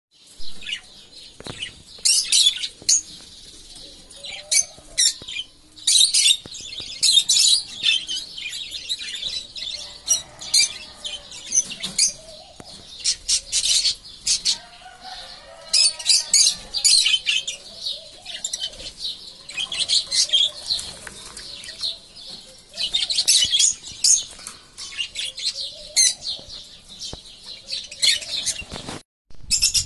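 Small parrots chirping: many short, high chirps in quick clusters, with brief pauses between.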